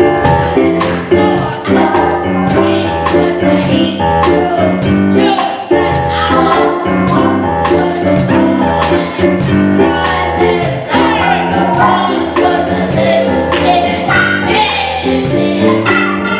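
Live gospel music with singing over a band, and a tambourine shaken in a steady beat.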